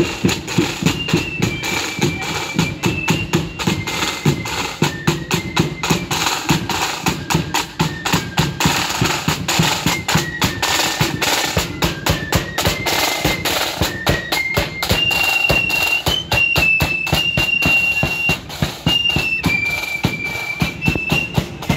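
Marching band passing close by: side drums beating rapid, busy patterns over a steady bass drum, under a high single-line melody that steps from note to note.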